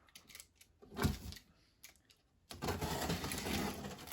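Packing tape on a cardboard box being cut and pulled open: a knock about a second in, then a steady rasp of tape and cardboard lasting about a second and a half.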